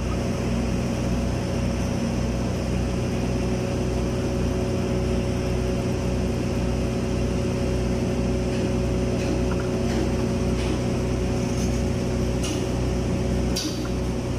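Steady machinery drone holding several steady tones over a low throb that repeats about twice a second, with a few faint clicks near the end.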